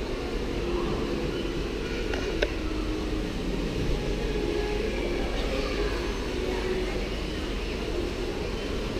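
Lobby ambience: a steady low hum and rumble with faint distant voices, and a single sharp click about two and a half seconds in.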